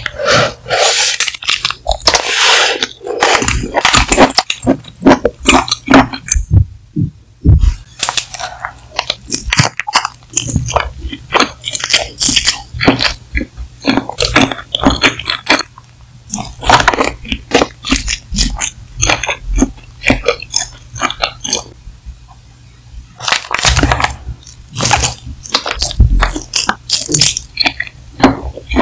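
Close-miked eating of spicy Chinese mala snacks: biting and chewing with many sharp, wet mouth clicks and crunches, in irregular bursts with a few short pauses.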